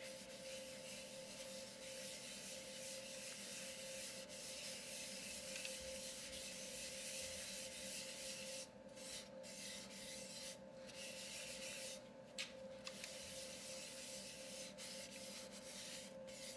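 A cloth rubbing over the inside of a turned wooden bowl, a continuous scratchy swish with a few brief pauses, over a steady low hum.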